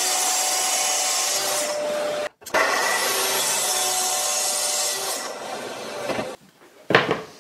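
Festool plunge-cut track saw running and cutting through a board along its guide rail, steady and loud. The sound breaks off abruptly about two seconds in and resumes at once, and there is a short sharp knock near the end.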